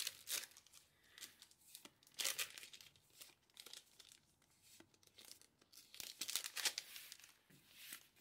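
Trading-card booster pack wrappers being torn open and crinkled by hand, in a series of short, irregular rustling bursts.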